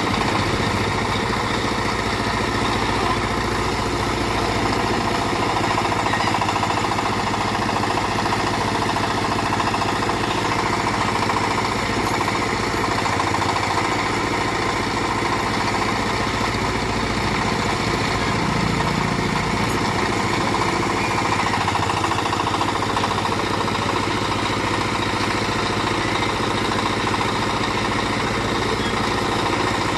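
Small backhoe's engine running steadily, with no clear changes in speed.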